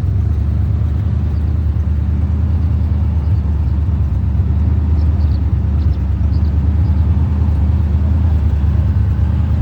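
1978 Chevrolet Corvette's L-82 350 V8 idling steadily through its exhaust, with an even, deep burble.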